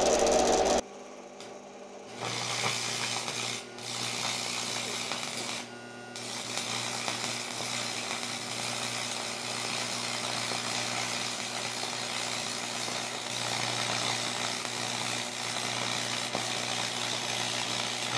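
Stick-welding arc crackling and hissing as a brass cast-iron welding rod is run on cast iron, on DC electrode positive at about 85 amps, over a low transformer hum. A loud rushing noise fills the first second and cuts off, the arc starts about two seconds in, breaks off briefly twice, then burns steadily.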